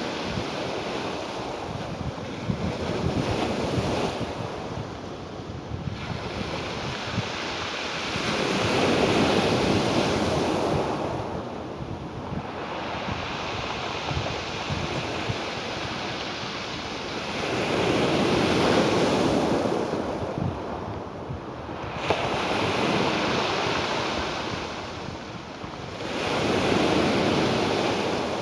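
Ocean surf: waves washing in as a continuous rushing noise that swells and falls back in slow surges about every nine seconds.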